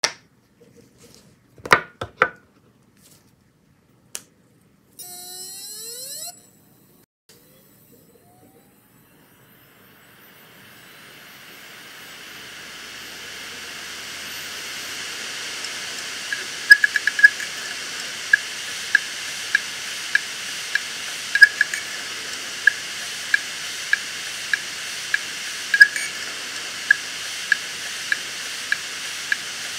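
Samsung Spinpoint F3 EcoGreen HD203WI 2TB hard drive, running with its cover open: a few sharp clicks and a brief rising whine come first, then the platters spin up with a steady air hiss that builds over several seconds. Once up to speed, the heads load off the parking ramp and seek with regular sharp ticks, about two a second. The drive is failing, with hundreds of reallocated sectors.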